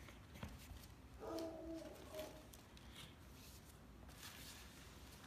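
Faint rustling and light taps of a cardboard portrait box and its paper contents being handled, with a brief murmured voice about a second in.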